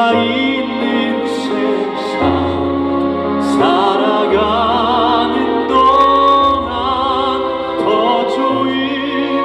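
Live ballad music: a melody with a wide vibrato sings out over held bass notes and chords that change every second or two.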